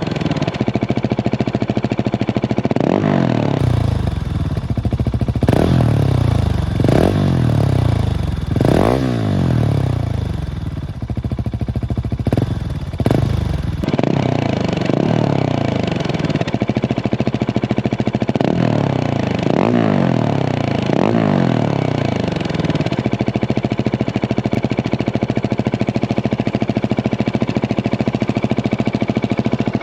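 Husqvarna 701 Supermoto's single-cylinder four-stroke engine breathing through a Remus exhaust, idling and blipped in a series of quick revs that rise and drop straight back. In the last quarter it settles into a steady idle.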